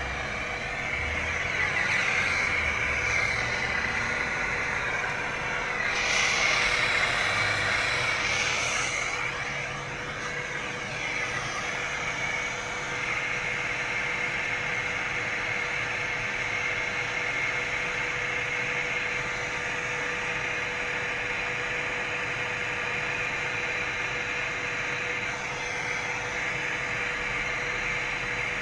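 Handheld gas torch on a yellow fuel cylinder burning with a steady hissing flame, heating copper pipe for brazing, over a steady hum. The hiss grows louder for a few seconds about two and six seconds in.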